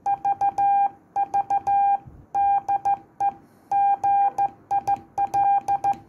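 Morse code sent by hand on a straight key, heard as the CW sidetone of an Icom IC-251E VHF transceiver: a steady beep keyed in dots and dashes, spelling out "V V DE GIL" with the gaps between letters, and a sharp click at the start of each element.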